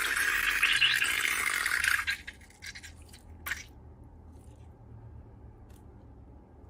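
Slime or crunchy slime ingredients being handled in a scratchy, crunching rush for about two seconds, followed by a few soft clicks.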